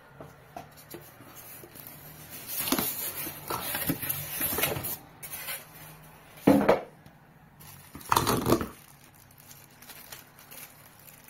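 Unboxing noise: plastic wrap rustling and a styrofoam packing insert rubbing against the cardboard box as packaging is lifted out. Two louder scrapes come about six and a half and eight seconds in.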